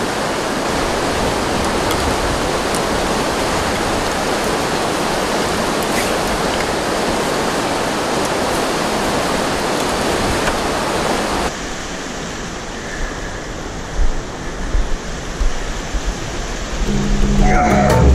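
Rushing whitewater of a rocky river rapid, a steady wash of water noise. About eleven seconds in it turns quieter and duller, with a few knocks.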